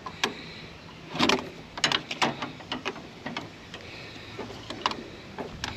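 Irregular clicks, knocks and short scrapes of an oil filter wrench working a crushed oil filter loose from a Kohler 7000 series lawn mower engine, with the loudest scrape about a second in.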